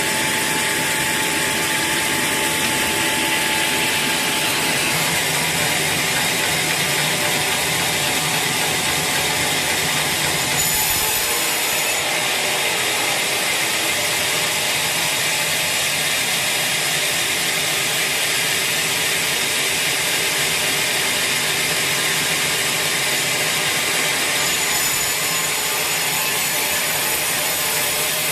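Sawmill saw cutting through a large teak log: a steady, unbroken noise of the blade running in the wood, its tone shifting slightly about eleven seconds in and again near the end.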